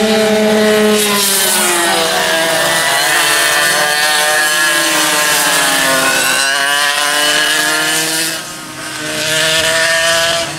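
Several vintage two-stroke racing kart engines running hard at high revs, their overlapping notes falling in pitch as karts pass and back off for a corner, then rising again as they accelerate away. The sound dips briefly near the end before another kart's engine climbs back up.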